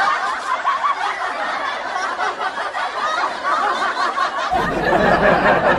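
People laughing and snickering, a dense, continuous laugh. About four and a half seconds in the background changes abruptly and a low rumble joins.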